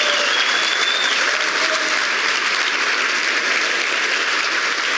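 Large conference audience applauding steadily.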